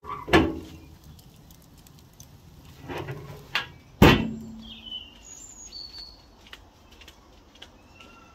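Steel lid of a barrel charcoal grill shutting with a sharp metallic clang that rings briefly, about four seconds in. Before it comes a loud thump at the start and softer knocks around three seconds; birds chirp after the clang.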